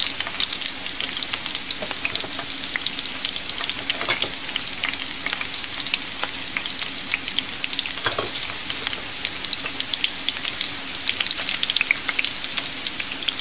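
Chopped onion and whole green and dried red chillies sizzling and crackling steadily in hot oil in a pan, the tempering (baghar) for kadhi, with a couple of louder pops about 4 and 8 seconds in.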